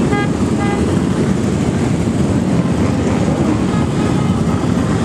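Many motorcycle engines rumbling steadily as a parade of bikes rides past, with a horn tooting briefly near the start.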